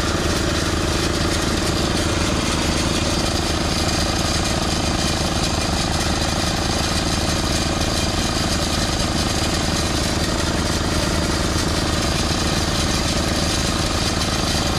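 Small engine running steadily at an even speed with a rapid chugging beat.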